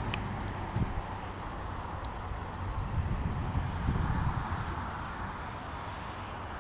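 Steady outdoor wind rumble on the microphone, with a few small sharp clicks and knocks from hands working a crankbait free of a just-caught largemouth bass.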